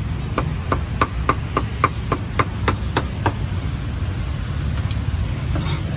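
Cleaver chopping cooked meat on a chopping block: about eleven quick, even strikes, roughly three a second, that stop a little past three seconds in. A steady low street rumble runs underneath.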